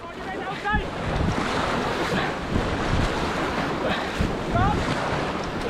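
Rushing river water with wind buffeting the microphone, fading up over the first second. A few short chirps cut through, once about a second in and again near the end.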